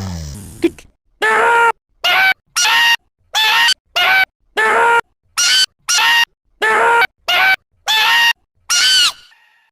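A cartoon character hiccuping over and over: about a dozen short yelps, roughly two a second, each rising and falling in pitch. The voice is altered by audio editing effects, and a falling sweep opens the run.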